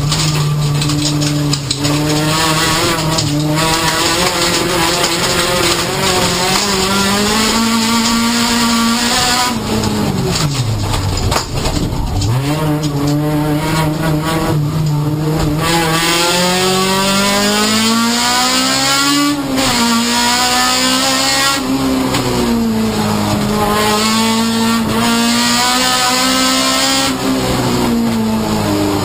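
1600 cc-class rallycross car's engine at racing pace, heard from inside the stripped, caged cabin: revs climb through each gear and drop at the shifts. About ten seconds in the revs fall away hard, as for braking into a slow corner, then build again.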